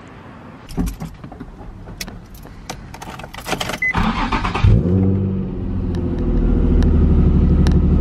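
Nissan 350Z's V6 being started: a few clicks and handling noises, a short crank about four seconds in, then the engine catches and settles into a steady low idle through a loud exhaust.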